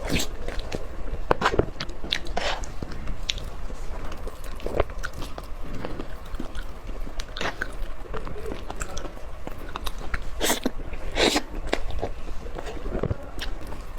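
Close-miked eating: irregular bites and chewing with crisp crunches and clicks, the loudest two bites about ten and eleven seconds in.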